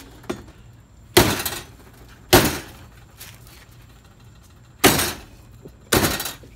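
A machete chopping a skinned wild pig carcass on a wooden chopping block: four heavy chops at uneven intervals, each a sharp whack with a brief tail, and a fifth just at the end, as the carcass is split and jointed.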